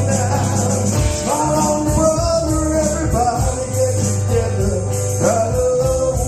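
Live rock band playing, with a steady bass line under a melody that slides between notes.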